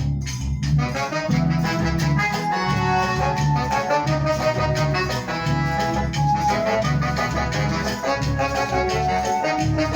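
Instrumental introduction of a song: band music that starts abruptly, with a melody line over a steady pulsing bass beat.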